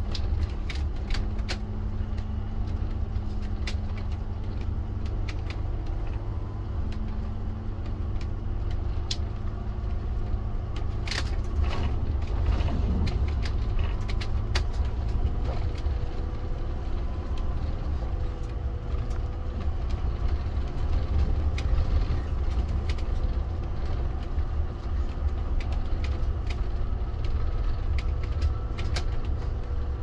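Steady low engine and tyre rumble heard from inside a vehicle's cab as it drives over a gravel dirt road, with scattered ticks and rattles throughout.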